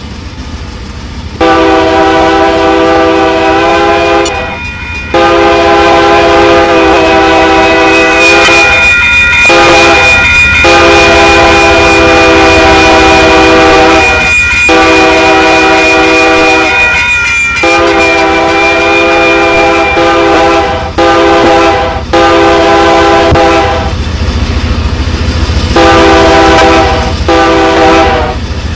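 Locomotive air horn blowing a chord in a long series of held blasts separated by short breaks, with a longer pause near the end, over the low rumble of a passing train.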